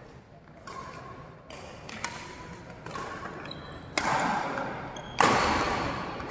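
Badminton rally: rackets striking the shuttlecock in a string of sharp hits about a second apart, the two loudest about four and five seconds in, each ringing on in the hall, with a few short high squeaks between them.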